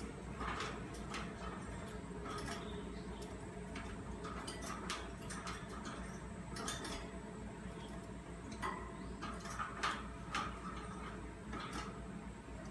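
A pet budgerigar moving about, making irregular light clicks and taps, a few every second, over a low steady background hum.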